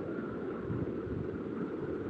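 Steady low rumbling background noise with a faint hiss and no clear event.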